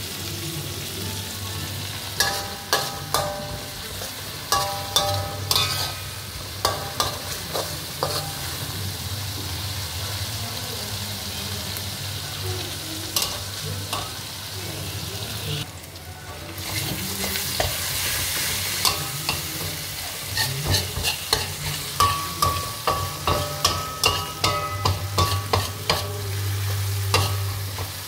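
Pounded shallot, garlic and chilli paste frying in oil in a metal wok, with a steady sizzle. A metal spatula scrapes and knocks against the wok again and again, each knock ringing briefly, in runs that are busiest near the start and in the last third.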